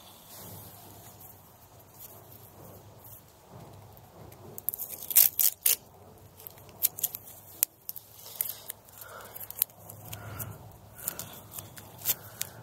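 Grafting tape being pulled off and wrapped around a fresh graft: irregular crackling and sharp clicks, with a loud cluster about five seconds in.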